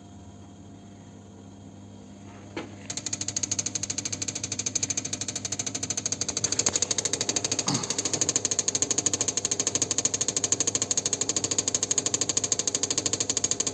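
Toyota Prius fuel injectors pulsing on an injector test bench: a low hum, a click about two and a half seconds in, then rapid, even ticking as the injectors fire, growing louder a few seconds later. The injectors barely spray; the mechanic takes the nozzles for clogged.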